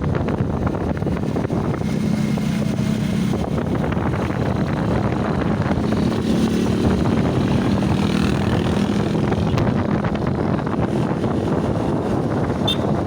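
A vehicle travelling along a road: a steady rush of wind and road noise on the microphone, with a low engine hum that comes and goes underneath.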